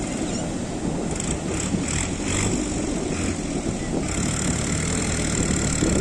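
Sea surf breaking and washing up the sandy beach, a steady rush of water with a low rumble underneath that grows in the second half.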